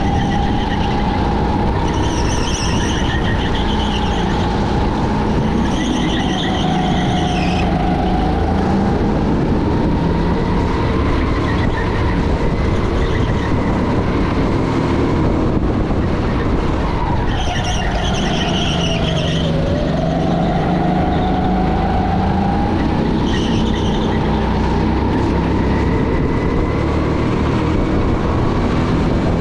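Racing car engine running hard through a session, with its pitch drifting up and down. The pitch drops sharply about two-thirds of the way in, then climbs back. A high whine comes and goes four times.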